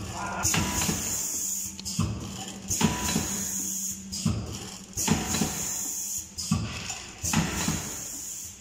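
Liquid sachet packing machine running through its bag-making cycle: a knock followed by a burst of high hiss, repeating about every two seconds over a low steady hum.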